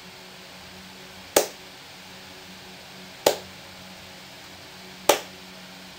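Three single hand claps, evenly spaced about two seconds apart, each followed by a silent beat: a rhythm of claps on beats one and three with quarter rests on two and four. A faint steady low hum lies underneath.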